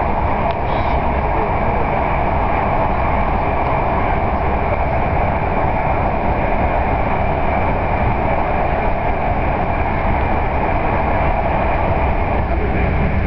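Train running at speed, heard from inside the carriage: a steady rumble and rail noise that does not change.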